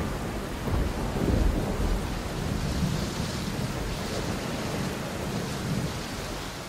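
Recorded thunderstorm: rain hiss with low rolling thunder rumbles that swell and ebb, fading out slowly, right after a heavy metal song ends.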